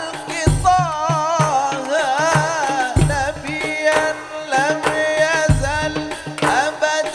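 Live sholawat (qasidah) music: drums beat a steady rhythm with a deep bass stroke about every two and a half seconds, under an ornamented, wavering melody.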